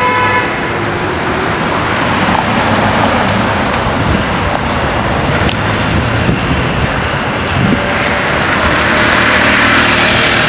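City street traffic: a steady noise of cars and other motor vehicles passing along the road.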